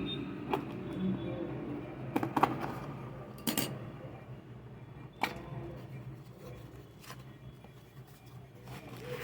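Sealed product package being handled and opened by hand: scattered clicks and crinkles, with a sharper snap or tear about three and a half seconds in, over a faint steady low hum.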